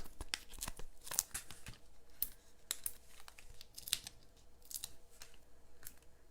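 Stampin' Dimensionals foam adhesive squares being peeled off their backing sheet and pressed onto cardstock: irregular small crackles, ticks and tearing sounds.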